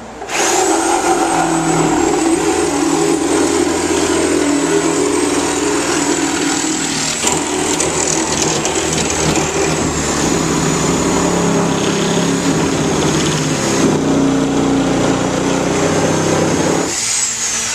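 Power saw fitted with a Milwaukee blade running through a test cut. The motor starts just after the opening, runs steadily under load with a high whine, then stops near the end, the whine falling as it winds down.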